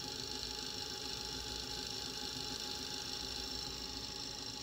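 Curtis Mathes HK510 cassette deck rewinding a tape: a steady whir from the transport motor and the spinning reels.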